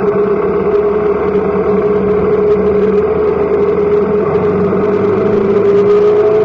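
Motorcycle engine running steadily under way, heard from a mount on the bike, its pitch rising slightly about five seconds in.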